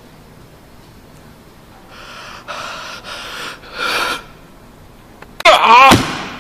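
A man's loud breaths and snorts, followed a little past five seconds in by a loud, high, wavering vocal cry without words.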